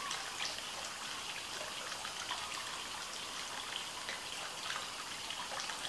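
Steady, even high-pitched hiss, with nothing else standing out.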